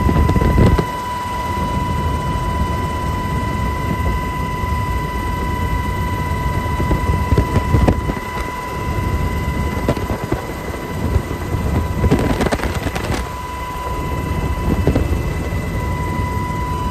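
Helicopter engine and rotor noise, a steady low rumble with a constant high-pitched whine over it, surging louder near the start and again about twelve seconds in.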